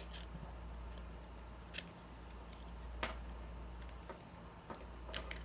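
Scattered metallic clicks and clinks, with a few sharp ones about two and three seconds in and again near the end, from a small flathead screwdriver prying at the C-clip on a Paclock 100A padlock's core.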